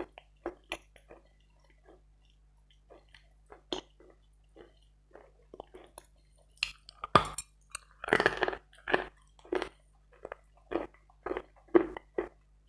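Hard, wet Bogorodsky chalk being bitten and chewed. Sparse small clicks and crackles give way about seven seconds in to a burst of loud crunching, followed by steady crunchy chews about two a second.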